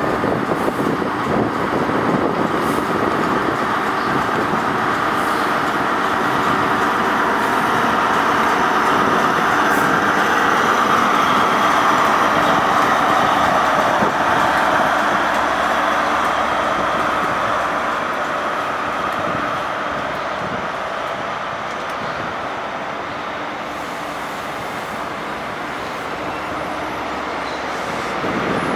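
Class 43 High Speed Train power car with an MTU V16 diesel engine running as the train moves past, loudest about halfway through as the power car goes by. The engine fades as the coaches follow, with a steady rumble of wheels on the rails.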